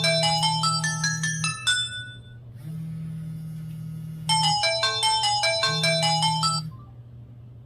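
A Samsung GT-E2121L mobile phone plays a downloaded ringtone for an incoming call: a quick run of melodic notes, a pause of about two seconds, then the same phrase again. The ringtone stops about seven seconds in. A low buzz switches on and off beneath it.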